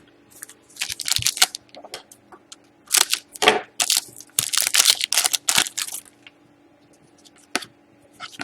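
Crinkling and rustling of plastic packaging as trading cards are handled, in a run of bursts through the first six seconds, then a few light clicks.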